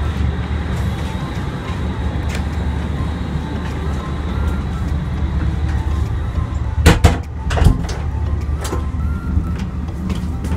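Steady low rumble of an ICE high-speed train running, heard inside the carriage. A few sharp knocks come about seven seconds in and again near the end as the toilet door and its handle are handled.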